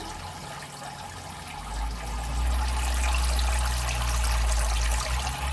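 Water trickling and splashing steadily from a turtle tank's filter. A low rumble joins in about two seconds in and runs on.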